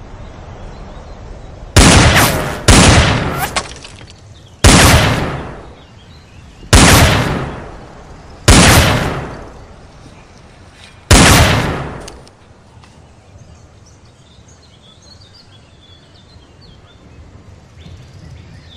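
Six gunshot sound effects, the first about two seconds in and the last about eleven seconds in, spaced one to two and a half seconds apart. Each is a sudden loud shot that dies away over about a second.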